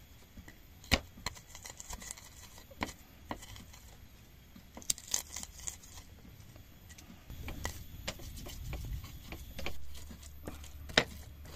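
Wooden pestle crushing and grinding spice paste (shallots, garlic, chillies, candlenut) in a cobek mortar. There are sharp knocks of the pestle every second or two, then a low rubbing grind in the second half as the ingredients turn to a paste.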